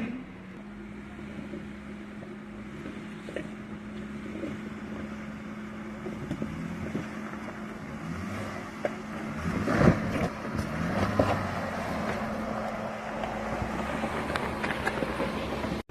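Off-road vehicle engine running steadily over rough terrain, with a loud jolt or knock about ten seconds in.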